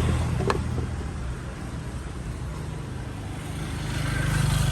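A motor vehicle's engine running close by, steady and growing louder about four seconds in, then easing off as it passes.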